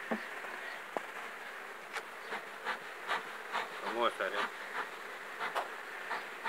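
Honey bees buzzing steadily over an open hive. Over the buzz, from about two seconds in, comes a run of short puffs from a beekeeper's smoker, roughly two or three a second. A brief wavering buzz rises over the rest about four seconds in.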